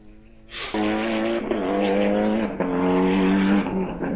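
Group A rally car engine pulling hard through the gears. It comes in loud about a second in, and its pitch drops at each upshift, about once a second.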